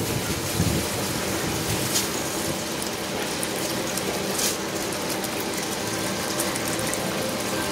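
Tabletop wet grinder running, its stone rollers grinding soaked rice in the rotating drum: a steady mechanical whirr with the wet churning of rice and water, and a few light clicks.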